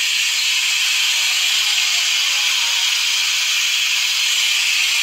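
Air hissing steadily as it rushes through a valve into a vacuum chamber, bringing the chamber back up toward atmospheric pressure.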